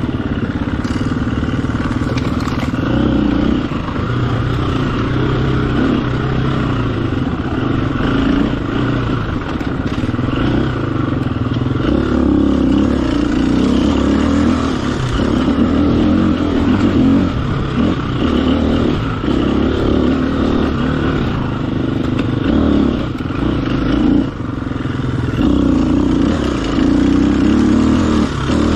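Off-road racing motorcycle engine running hard, its pitch rising and falling as the throttle is opened and closed, with brief dips in revs such as one about 24 seconds in.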